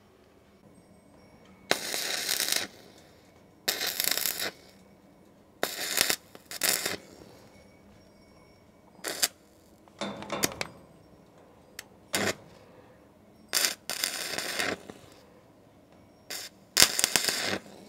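Electric arc welding of a steel door's hinge joints, in about ten short bursts of half a second to a second each with quiet gaps between.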